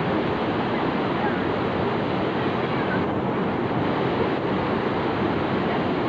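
Steady, unbroken rushing of water, an even noise with no separate splashes or breaks.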